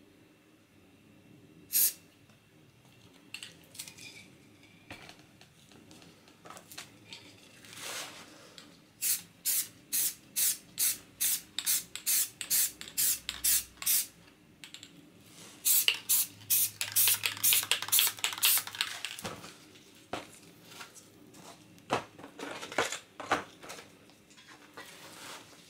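Aerosol spray-paint can sprayed in short hissing bursts. One burst comes near the start, then a quick even run of about two a second, a denser cluster, and a few last bursts near the end.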